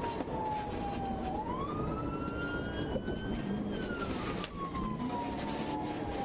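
Police car siren in its wail pattern: a slow falling sweep followed by a quick rise, repeating about every three seconds, over a steady low rumble of road and engine noise.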